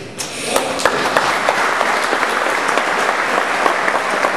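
Large audience applauding: the clapping starts just after the spoken tribute ends and quickly builds to a steady, dense round of applause.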